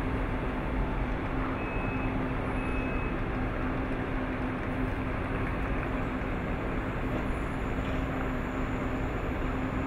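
Electric commuter train standing at the platform, running with a steady hum. Two short high beeps come about two seconds in.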